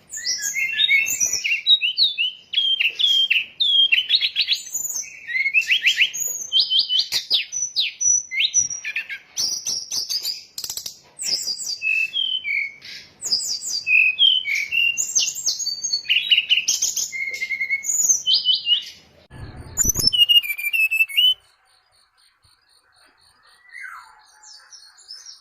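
A lure call of the brown-chested jungle flycatcher (SRDC): rapid, varied high chirps and short trills, used to draw wild birds in to be trapped. A low thump comes near the end, and the song stops abruptly about three-quarters of the way through.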